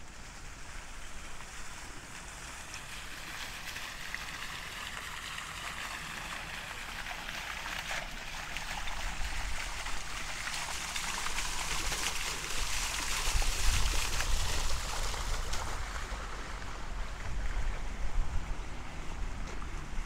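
Fountain jets splashing into a stone basin: a steady rush of falling water that builds toward the middle and fades near the end.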